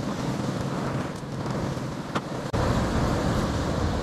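Steady rush of sea surf and wind on the microphone at a rocky shore, turning suddenly louder and deeper about two and a half seconds in, with a faint click just before.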